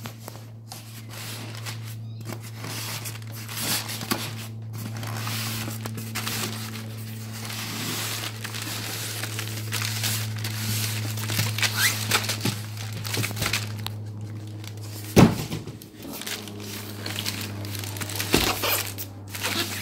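Large polystyrene foam packing block rubbing and scraping against the cardboard shipping box as it is pulled out, with crinkling cardboard and many small knocks. A sharp thump about 15 seconds in, and a lighter one near the end, over a steady low hum.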